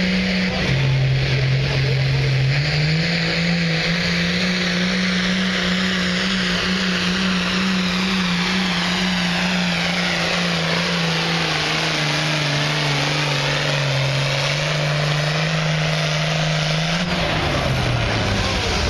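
Pulling tractor's diesel engine at full throttle, dragging a weighted sled under heavy load. Its pitch dips briefly about a second in, climbs back, then sags slowly as the load builds, and falls away about two seconds before the end as the pull ends.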